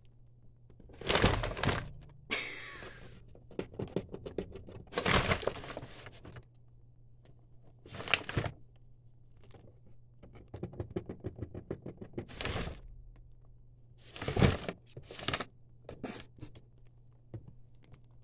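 Rabbit rummaging in a cardboard shoebox, rustling the tissue paper and bumping the box and boots: irregular bursts of rustling and knocking a second or more apart, with short runs of quick clicks between them.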